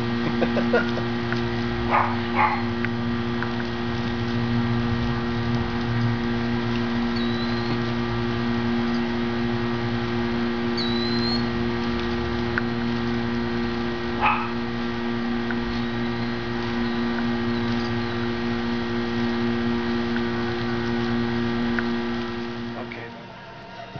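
A steady, even hum runs throughout and drops away about a second before the end, with a couple of short knocks and a few faint high chirps over it.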